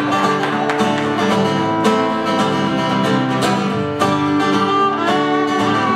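Acoustic guitar strummed in a steady rhythm, with a fiddle playing held melody notes over it: the instrumental intro of a folk song.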